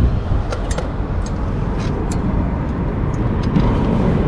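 A few light metal clicks and clinks as new brake pads are handled and fitted into a brake caliper bracket, over a steady low rumble.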